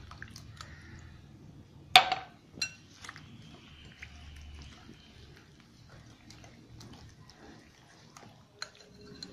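Utensils stirring and whisking semolina batter with milk in a glass bowl: soft scraping and faint taps, with one sharp clink about two seconds in and a smaller one just after.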